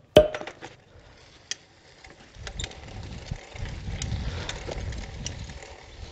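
Movement along a dirt road: a sharp knock just after the start and a few scattered clicks, then from about two seconds in a low rumble on the microphone with irregular crunching clicks.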